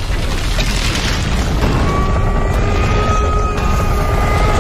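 Film sound mix of a missile explosion: a loud, deep, continuous blast rumble. Held music notes come in over it about two seconds in.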